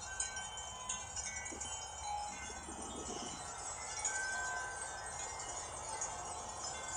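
Several sets of tuned wind chimes ringing together in a gust of wind, many overlapping tones struck at random and left to ring.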